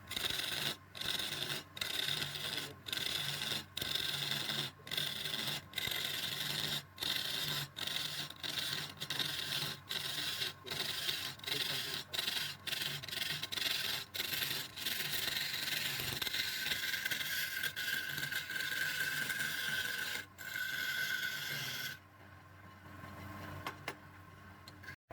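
Woodturning tool scraping and rasping against wood, broken by short gaps about once a second. A steady high-pitched tone runs through it from about two-thirds of the way in, then the sound drops away to a low level near the end.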